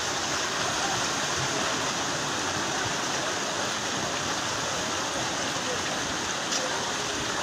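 Steady rushing of floodwater, with faint voices in the background.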